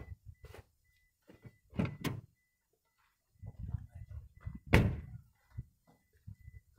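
A few separate thuds and knocks, the loudest a little before five seconds in, with low rumbling between them.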